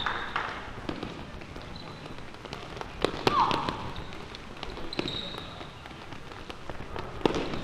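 Field ambience during a youth ball game: a few sharp thuds of a ball being struck, with distant shouts from players.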